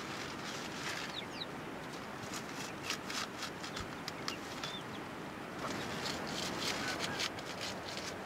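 Short crisp cuts as a curved sickle blade chops nettle leaves and stalks in a bowl, coming in clusters a few seconds in and again past the middle, over a faint steady hiss. A few brief high chirps, like a bird's, sound now and then.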